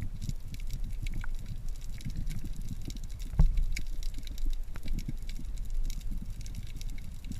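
Underwater noise picked up by a submerged camera: a steady low rumble with scattered faint clicks and crackle, and one sharper knock about three and a half seconds in.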